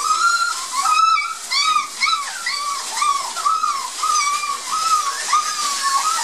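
A litter of six-week-old Border Collie puppies whining, a run of short high cries that rise and fall, about two a second, over the rustle of shredded newspaper as they move about.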